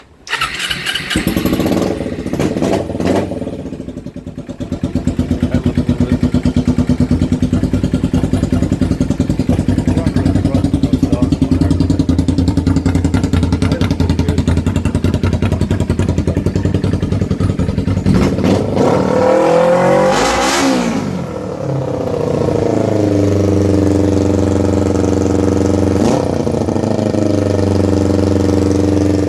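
Kawasaki EX250's parallel-twin engine, run with its exhaust off, starting up and running loud. It catches about a second in and runs at a fast idle. Around two-thirds of the way through it revs up and back down, then settles to a lower, steady idle.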